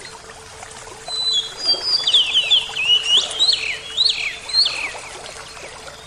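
A songbird sings a quick run of falling notes from about a second in until near the end, over the steady rush of a small waterfall.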